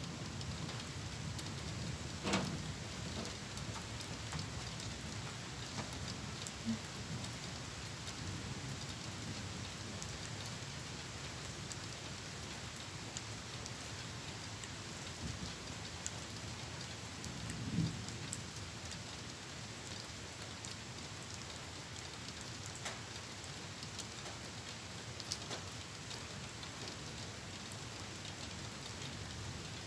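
Steady rain falling, with a fine patter of drops ticking close to the microphone. A brief knock comes about two seconds in, and a short low sound a little past halfway.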